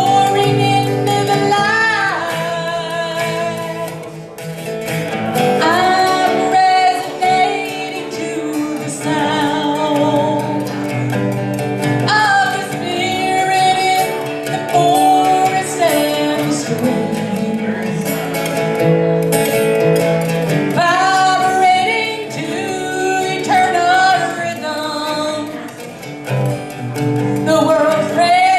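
Live song: a singer holding long, wavering notes over a strummed acoustic guitar.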